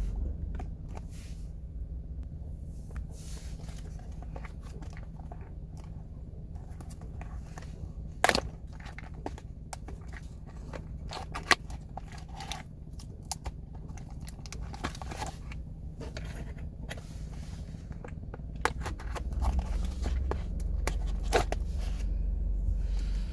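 Hands opening a door lock case's packaging: scattered clicks, scrapes and crinkles of cardboard and plastic, with one sharp click about eight seconds in, over a steady low hum.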